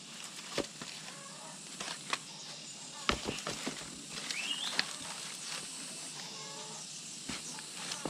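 Hard plastic crates knocking and scraping as one is lowered over another, with sharp clicks scattered through and the loudest knocks around three seconds in. A short rising bird chirp is heard about four and a half seconds in.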